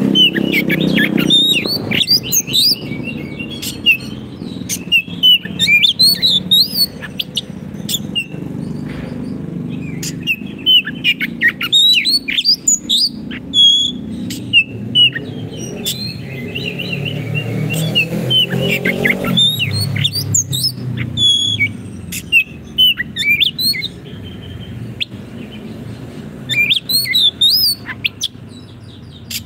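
Oriental magpie-robin (kacer) singing in phrases of quick, varied whistles and chirps, with short pauses between them, over a steady low rumble.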